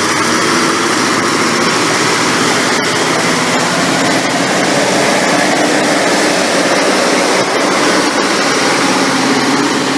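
V/Line Sprinter diesel railcars running loud and steady as the train departs, a dense drone that does not let up.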